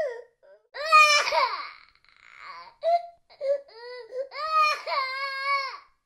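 Baby crying in wailing bursts: a loud cry about a second in, a few short sobbing cries, then a long wail near the end.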